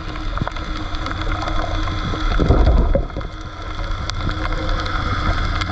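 Underwater ambience picked up by a submerged camera: scattered clicks and crackles over a low rumble and a faint steady hum, with a louder low rush about two and a half seconds in.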